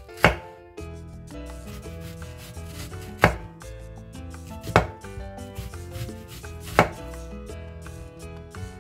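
Kitchen knife slicing a red onion into thin rings on a bamboo cutting board, the blade knocking down onto the board four times, one to three seconds apart.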